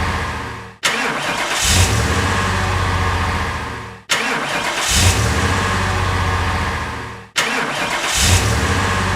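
Car engine sound effect: a short clip of an engine surging up and then running, looped, so that about every three and a quarter seconds the engine fades and then starts again abruptly.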